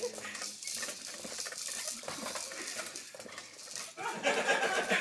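Plastic toys and parts of a baby's activity jumper rattling and clattering as the baby bounces in it. About four seconds in, louder voices and laughter come in.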